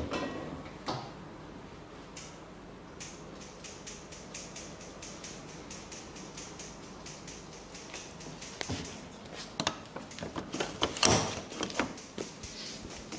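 Fingertips rubbing and stroking across skin in a forehead massage, soft rustling picked up close by a wireless microphone worn on the masseur's wrist. Near the end the rubbing gives way to a run of knocks and thumps as the hands move off, the loudest a little before the end.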